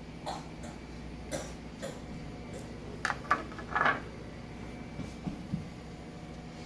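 A few light clicks and knocks of things being handled, loudest in a short cluster about three to four seconds in, over a steady low hum.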